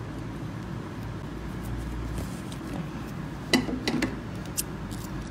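Close handling of a fabric bag and zipper while hand-stitching: a few short clicks and rustles about three and a half to four and a half seconds in, over a steady low room hum.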